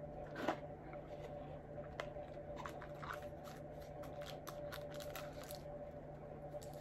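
Small cardboard chocolate box being opened by hand: a sharp crackle about half a second in, then a quick run of small crinkles and clicks as the lid and paper are worked loose.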